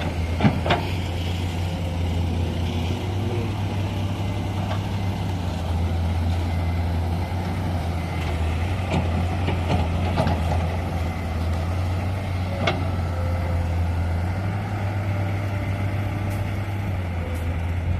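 Heavy diesel engine running steadily at a low idle, with a few short sharp knocks now and then.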